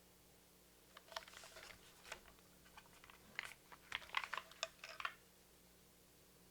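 Typing on a custom mechanical keyboard with lubed Cherry MX Black linear switches and tall SA keycaps, on a gasket-mounted polycarbonate plate. A quick run of keystrokes starts about a second in and stops about five seconds in, loudest near the middle of the run.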